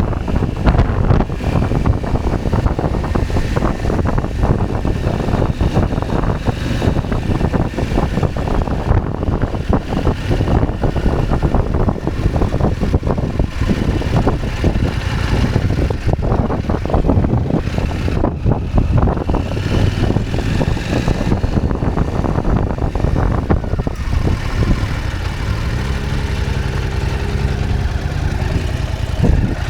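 KTM 790 Adventure's parallel-twin engine running on the move, under heavy wind buffeting on the microphone. Near the end the wind noise drops and the engine's note comes through clearly, its pitch shifting up and down as the bike slows.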